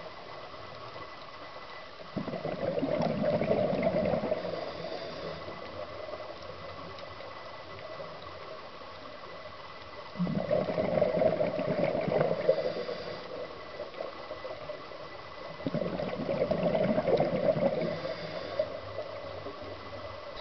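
A scuba diver's exhaled bubbles gurgling out of the regulator underwater. There are three bursts of about three seconds each, six to seven seconds apart, in a steady breathing rhythm.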